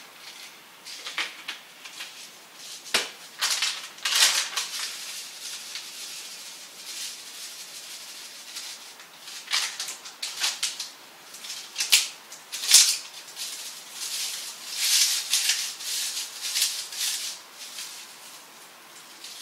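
Kitchen handling noises as ingredients go into a slow cooker: scattered rattling and rustling bursts, with a sharp knock about three seconds in and two more around the middle.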